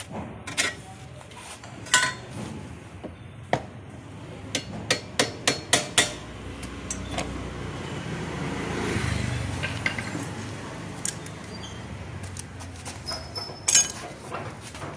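Hammer blows on a screwdriver held against the steel frame of a stripped Honda Pleasure scooter at the steering head. Scattered single strikes are heard, then a quick run of about six, with a rushing noise swelling and fading near the middle.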